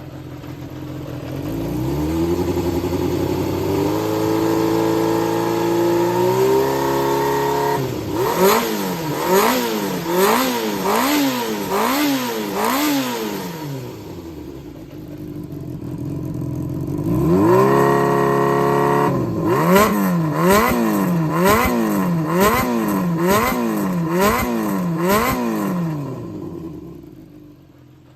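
Yamaha XJR400's air-cooled inline-four engine running and being revved: the revs climb in steps, then the throttle is blipped over and over, about once a second, in two runs with a settle to lower revs between them, before the sound falls away near the end. The engine is presented as healthy, running without abnormal noise.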